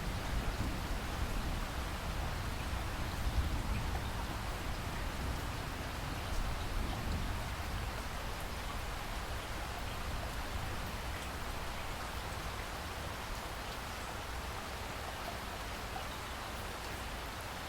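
Steady rain falling, with a low rumble of thunder fading away over the first several seconds.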